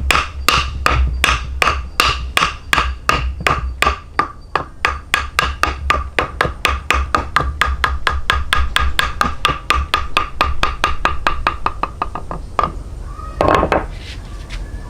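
A hammer striking over and over with a short ring on each blow, about three blows a second at first and quickening to about five, then stopping. A single heavier knock or scrape follows near the end.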